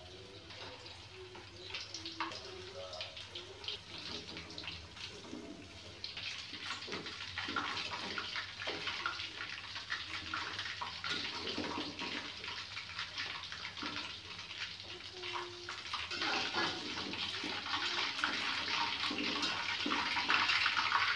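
Battered chicken pieces sizzling and crackling in hot oil in a wok. The sizzle grows louder about a third of the way in and again near the end, as more pieces go into the oil.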